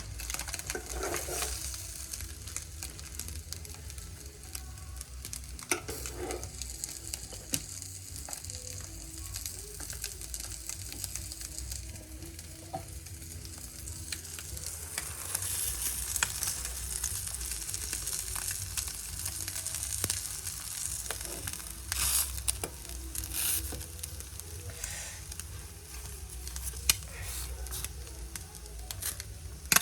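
Food sizzling as it fries in a pan: a steady hiss with scattered crackles and pops.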